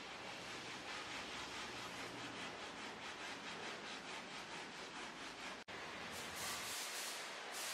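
Hand sanding on a car body: steady hissy rubbing with faint, evenly repeated strokes. A sudden break near the end, then brighter bursts of hiss.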